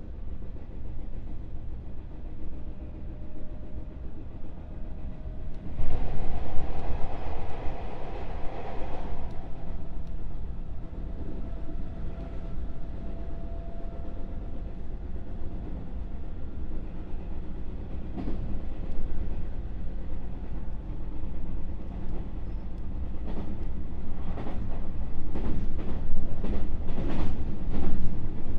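Running noise heard inside a JR West 221-series electric motor car in motion. A louder rush of noise rises for about three seconds near the start, then dies away. Near the end comes a run of clicks from the wheels passing over rail joints.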